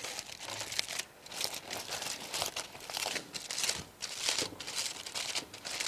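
Aluminium foil being crinkled and rolled up by hand around a baked apple, a run of irregular crackles.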